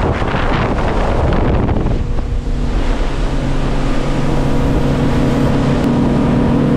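A 300-horsepower outboard motor driving a boat at speed, with wind buffeting the microphone and water rushing in the wake. About two seconds in, the wind noise eases and the engine's steady hum comes through more plainly.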